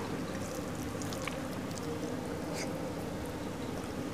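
Faint eating sounds: fingers mixing rice on a steel plate and chewing, a few soft clicks over a steady low background hum.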